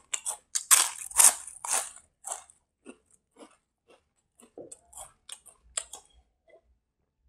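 A person chewing food right at the microphone: a quick run of loud chewing sounds over the first two seconds, then fainter, sparser chews that die away about six seconds in.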